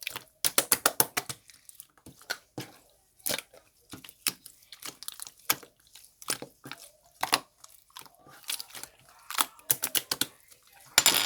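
Slime being mixed and squished by hand, giving irregular sticky clicks and crackling pops, some in quick runs.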